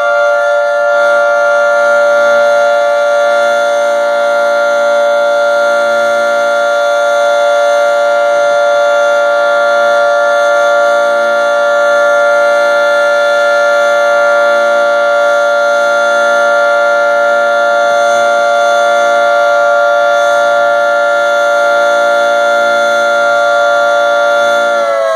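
24-horn electromechanical tornado siren holding a loud, steady tone, the alert signal. Right at the end its pitch starts to fall as it begins to wind down.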